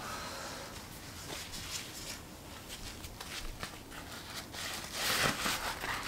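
Quiet room with faint rustling and soft ticks of movement, then a louder rustle starting about five seconds in as the person crouches down at the floor mat.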